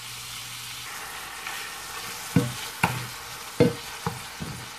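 Ground beef sizzling in a frying pan while a Pampered Chef meat chopper is twisted and pressed through it to crumble the meat. From about two seconds in, the tool knocks against the pan several times, about two a second.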